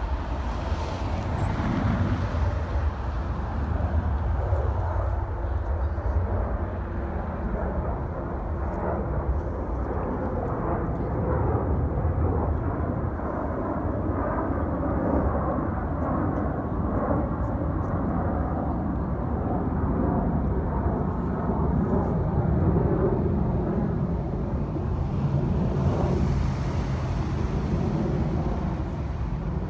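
Jet airliner climbing out after takeoff, its engines a steady, distant rush of noise with no distinct tones.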